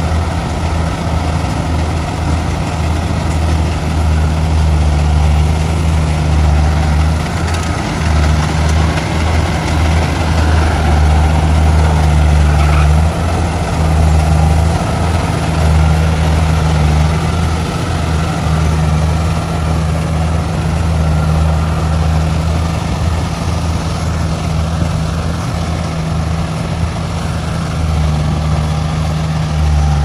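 Small tracked rice combine harvester's engine running steadily under load as it cuts and threshes rice, a constant low hum with mechanical clatter above it.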